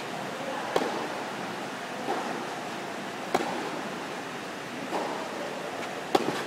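Tennis rally: a ball struck back and forth with rackets, with three sharp close hits about two and a half seconds apart and fainter hits from the far end between them, over a steady hiss.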